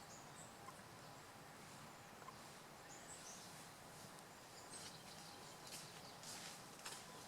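Near silence: faint outdoor background noise with a few short, high bird chirps, and faint brief rustles in the last couple of seconds.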